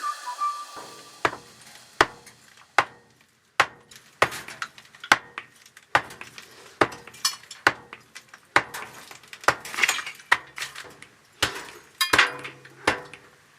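Sharp clinking knocks of hard objects striking, repeated about once every second, each with a short ring.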